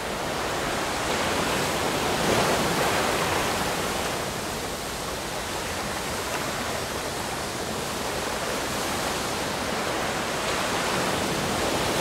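Steady rushing of strong wind and rough sea on the deck of a container ship at sea.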